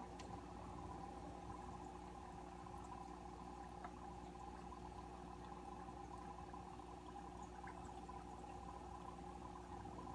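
Faint, steady aquarium equipment noise: a constant low hum at several pitches with a soft trickle of water and a few tiny ticks.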